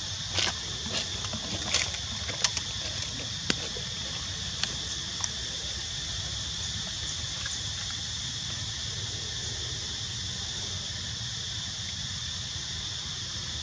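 Steady high-pitched insect drone, with a scattering of short sharp clicks and rustles in the first five seconds.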